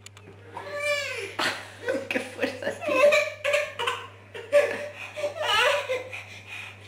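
A woman laughing in repeated bursts.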